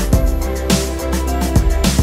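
Background music with a steady beat and a deep, constant bass.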